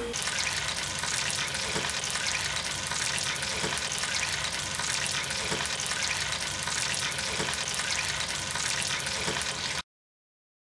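Oil sizzling steadily as food deep-fries, with a faint tick about every two seconds, cutting off suddenly near the end.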